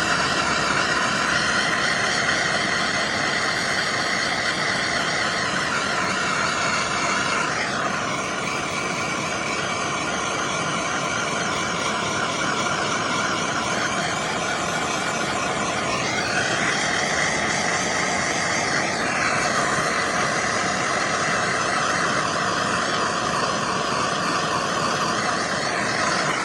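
Electric heat gun blowing steadily, shrinking heat-shrink tubing over crimped wire connectors; its whine shifts in pitch a couple of times and it cuts off suddenly at the end.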